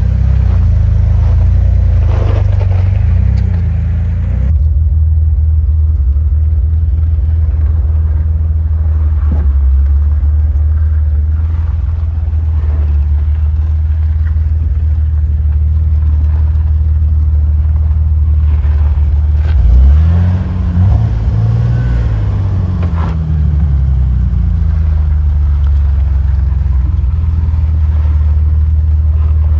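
Jeep Wrangler engine running at low trail speed, a steady low drone whose pitch rises and falls as it is revved, briefly about two seconds in and again in several swells around twenty seconds in.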